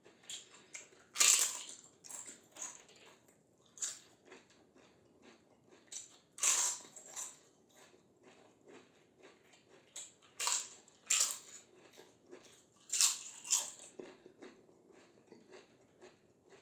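A person biting and chewing crispy fried snacks: several loud crunching bites spread through, with softer crunchy chewing in between.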